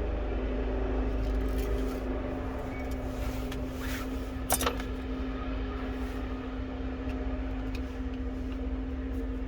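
Steady background hum with a constant low tone, over which small parts are handled: a few faint clicks and a sharper double click about four and a half seconds in, as the phone's bottom cover is fitted.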